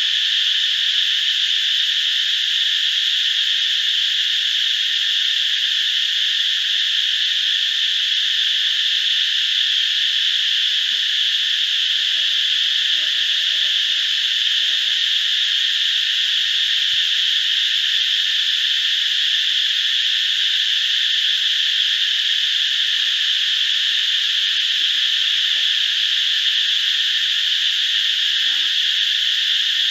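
Steady insect chorus: a loud, dense, high-pitched drone that doesn't pulse or change. About halfway through, a faint low call repeats a few times beneath it.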